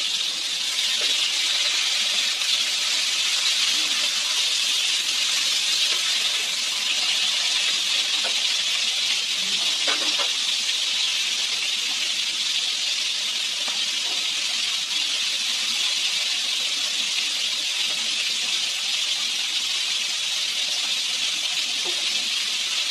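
A pot of mung bean soup boiling hard on the stove with a steady hiss. The beans are being cooked down so the soup thickens.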